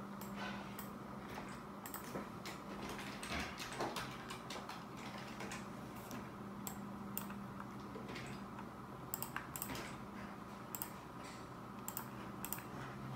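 Scattered light clicks and taps as a dwarf hamster is handled over a clear plastic scale bowl, with a faint steady hum underneath.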